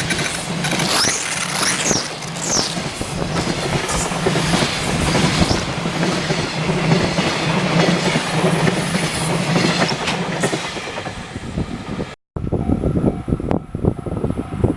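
Train passing close on the Tokaido Line, its wheels clattering over the rails, with high wheel whines sweeping up and down in the first couple of seconds. The sound cuts off abruptly about twelve seconds in, then resumes with sharper, separate wheel clacks.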